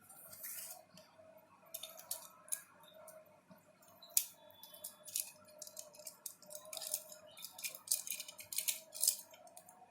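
A package being opened by hand: irregular crinkling, crackling and snipping of packaging, getting busier about halfway through, over a faint steady hum.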